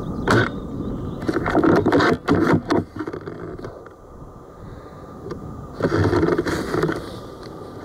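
Scraping and rustling handling noise from an airsoft sniper rifle carrying a scope camera as it is shifted against cover, in several rough bursts. The longest burst comes about six seconds in as the rifle swings.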